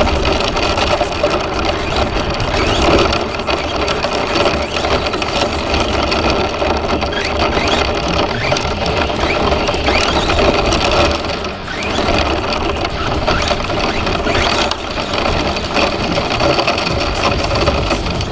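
Brushless electric motor and gears of a Team Associated SC10 RC short-course truck whining, rising in pitch several times as it speeds up, over a rough crunch of tyres on gravel, heard from a camera mounted on the truck.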